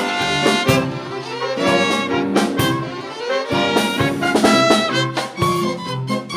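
Instrumental film music: brass instruments play a quick-moving tune over an orchestral accompaniment.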